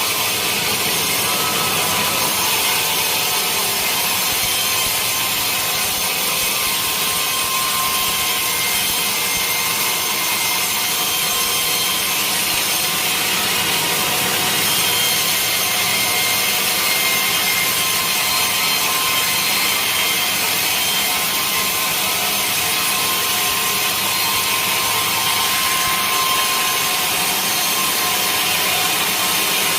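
Sawmill saw cutting steadily through a large teak log: a loud, unbroken sawing noise with no pauses.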